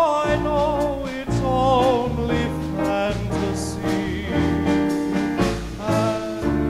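Live dance band playing music: a wavering, vibrato melody line over steady bass and rhythm.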